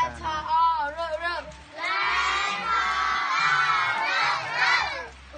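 A group of children shouting and cheering together for about three seconds, after a single voice speaks briefly.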